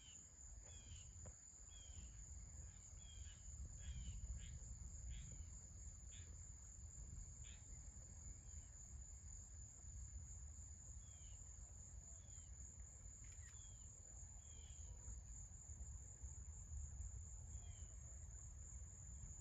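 Steady high-pitched drone of insects in the grass and trees, with short falling chirps every second or so through much of it, over a faint low rumble.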